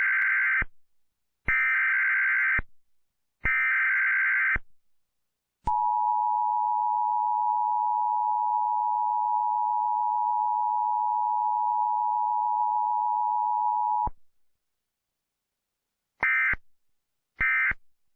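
Emergency alert broadcast signal: three one-second electronic data bursts a second apart, then a steady alert tone held for about eight seconds, then three short bursts near the end.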